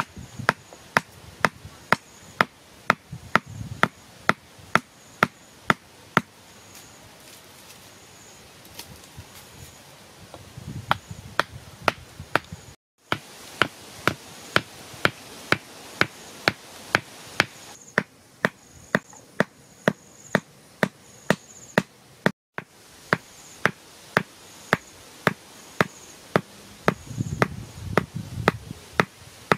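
Repeated sharp wooden knocks, about two a second, as the top of a wooden stake is struck to drive it into the soil. The blows pause for a few seconds about a third of the way through, then carry on.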